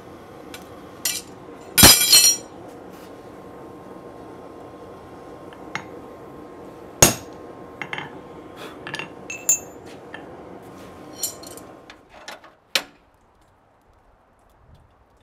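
Hammer blows on steel at an anvil while a hot saw-blade batarang is stamped with a maker's mark: a loud ringing blow about two seconds in and a second sharp blow about seven seconds in, with lighter metal clinks between. A steady background hiss falls away about twelve seconds in.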